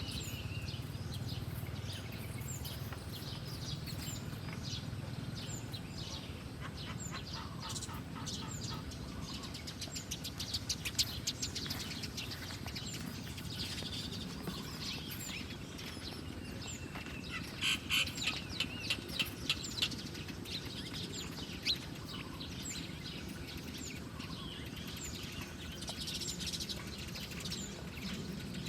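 Small birds chirping with short, high calls over a steady outdoor background, broken twice by a quick run of sharp taps or wing flutters: once about a third of the way in and again past the middle.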